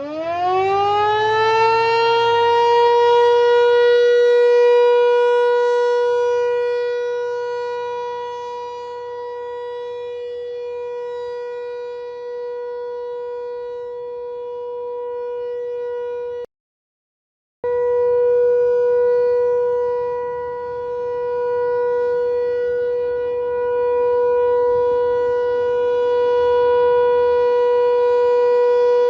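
ASC T-128 electromechanical tornado siren winding up to its steady Alert tone. The pitch climbs quickly over the first two seconds, then holds one steady note, swelling and fading slowly in loudness. The sound drops out completely for about a second midway.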